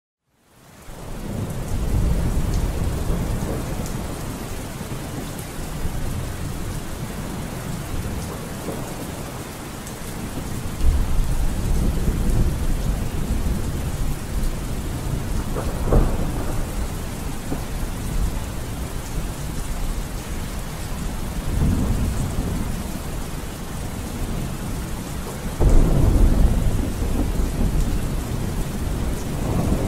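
Steady rain with low rolling thunder that swells up several times. It fades in over the first second or so.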